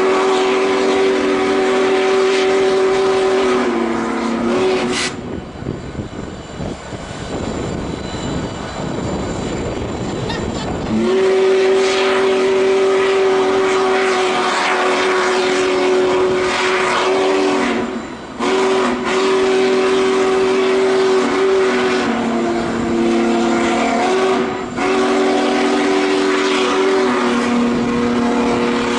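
Union Pacific Big Boy 4014 steam locomotive's whistle blowing long blasts, several tones sounding together as one chord. A blast of about five seconds gives way to several seconds of rushing hiss, then the whistle sounds again in three long blasts with short breaks between them, the chord dipping in pitch now and then.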